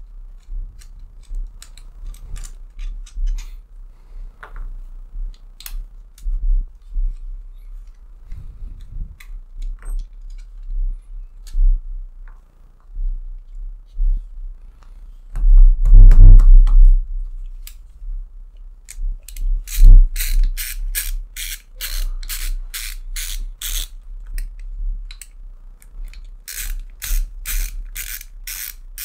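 Hands handling and fitting 3D-printed plastic parts of a Pico MMU filament changer, with scattered light clicks and knocks and a dull thump a little past halfway. In the last third comes a fast, even clicking, about four a second, which stops for a couple of seconds and then starts again.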